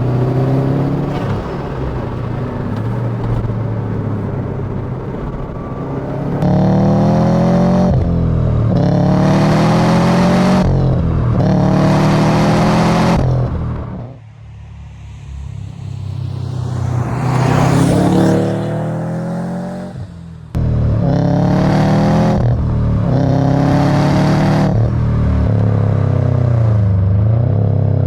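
A 2005 Subaru WRX STI's turbocharged 2.5-litre flat-four accelerating hard through the gears several times. The engine note climbs steeply and drops back at each upshift, with a brief lift off the throttle around the middle.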